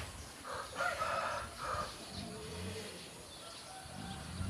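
A rooster crowing once, about a second in.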